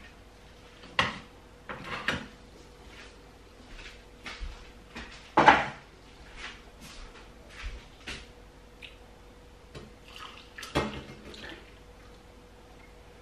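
A stainless steel saucepan and crockery being handled on a kitchen counter: scattered clinks and knocks of metal and china, the loudest about five and a half seconds in, as the pan is taken off a portable gas stove and tipped to pour into a cup. A faint steady hum runs underneath.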